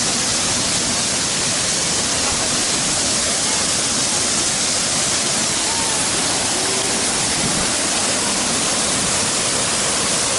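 Waterfall, water falling steadily: a dense, even rush that never lets up.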